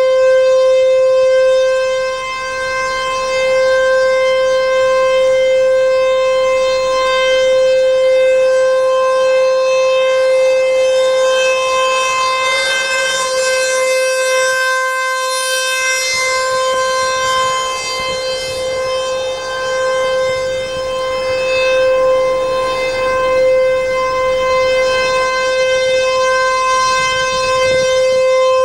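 ASC T-128 electromechanical tornado siren sounding its test at full speed: one steady, loud tone that holds its pitch and slowly swells and fades in loudness as the siren turns.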